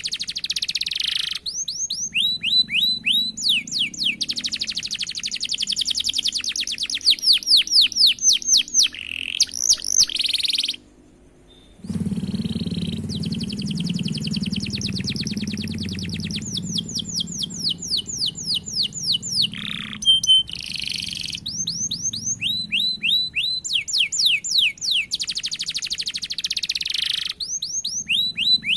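Domestic canary singing long rolled trills: fast runs of repeated, quickly falling notes, broken by short pauses, with a brief silent gap about eleven seconds in.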